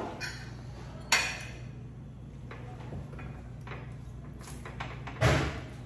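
Metal forks clinking and scraping on plates as spaghetti is twirled and eaten, with a sharp clink about a second in. A louder short thump comes near the end.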